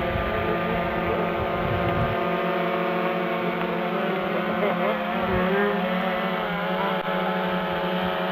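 Model airplane's motor running steadily aloft, a pitched hum whose pitch wavers a little around the middle. Wind rumbles on the microphone for the first two seconds.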